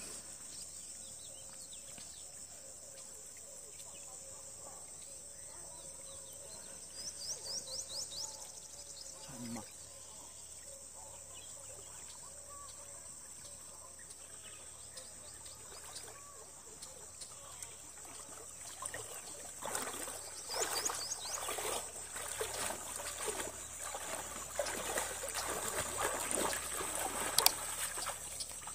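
Steady high drone of insects, with a couple of short runs of bird chirps. In the second half, irregular water splashing from someone wading through shallow river water.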